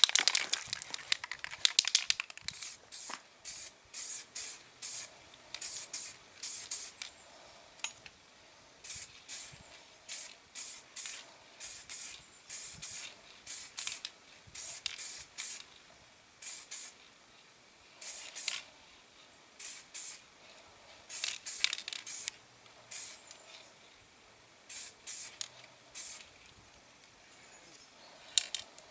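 Aerosol spray-paint can, a coat of primer going onto a diecast car body, sprayed in many short hissing bursts with brief pauses between them.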